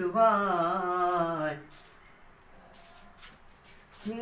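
A boy's voice sings a long, wavering, ornamented note of a Malayalam madh song, unaccompanied, ending the line. About two and a half seconds of quiet room tone follow, and the singing starts again at the very end.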